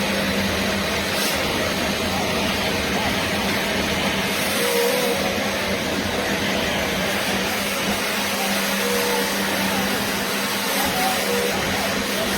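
BISSELL Little Green portable carpet and upholstery cleaner running steadily: a constant suction whoosh over a low motor hum.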